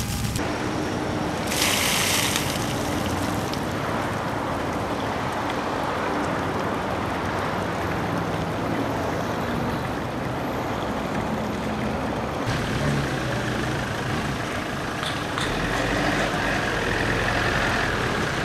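Steady outdoor wash of splashing fountain water mixed with road traffic running underneath, with a short sharp hiss about two seconds in.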